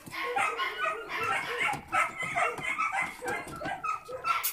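Several puppies whimpering and yelping inside a plastic pet carrier, short high cries coming several a second.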